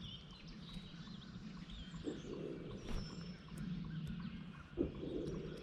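Faint bird chirps over outdoor background noise, with two dull thumps, about two seconds in and again near five seconds.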